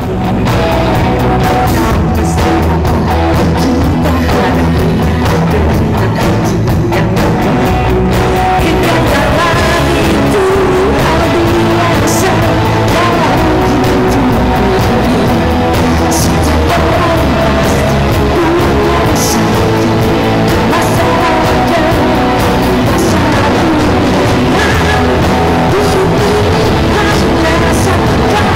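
A rock band playing live, with drums and electric guitars, behind a woman singing lead into a microphone.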